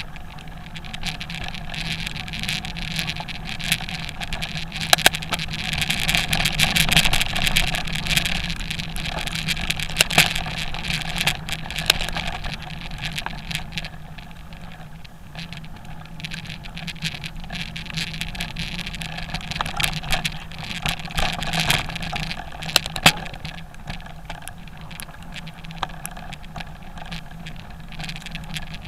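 Off-road motorbike engine running steadily as the bike rides a narrow dirt track, with many sharp clicks and knocks from the track and brush. The sound is loudest about six to eight seconds in.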